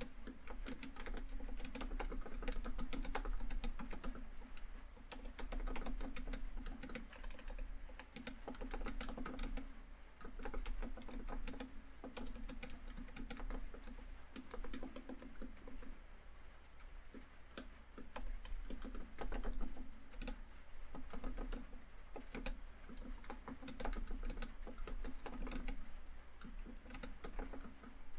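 Fast typing on a laptop keyboard: rapid key clicks in bursts, with short pauses between runs.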